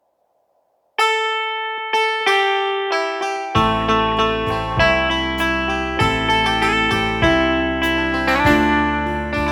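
Instrumental music: a melody of plucked, guitar-like notes starts about a second in, and a low bass part joins about three and a half seconds in.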